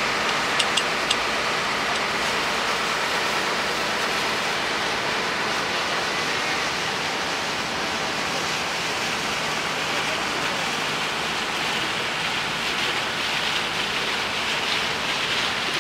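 Steady rushing noise of a motor launch under way: its engine drone mixed with water washing along the hull. Three short clicks come about half a second to a second in.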